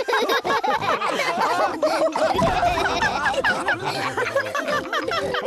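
Several cartoon voices laughing together. Music comes in under the laughter about two and a half seconds in.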